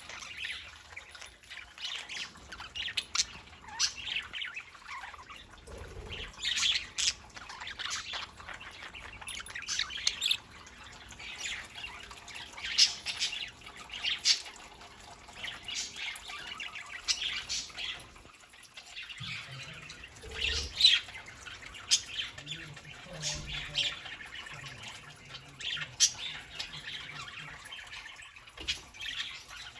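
Budgerigars chattering and warbling continuously, with many short sharp chirps and squawks.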